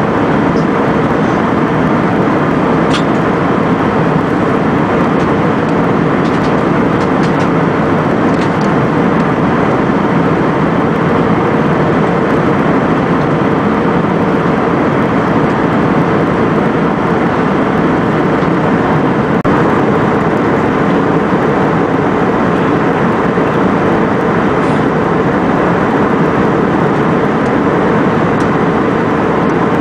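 Steady cabin noise of an Airbus A320-family jet airliner in flight, heard from a window seat: an even rush of engine and airflow noise.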